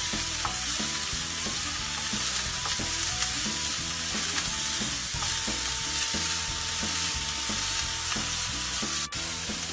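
Diced onions sizzling in hot oil in a wok as a wooden spatula stirs and scrapes them around the pan, the onions softening. The sizzle is steady, with a brief break near the end.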